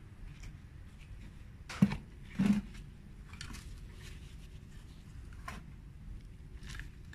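A plastic flower pot and a plastic garden trowel being handled over a heap of potting soil: two short knocks about two seconds in, the first the louder, then a few soft scrapes as the trowel scoops the soil.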